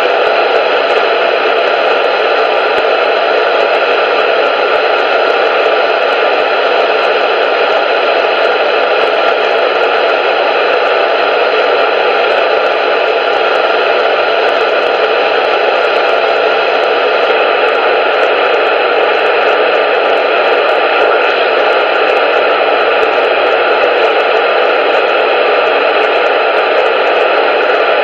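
Loud, steady static hiss, thin like a radio's, that does not change.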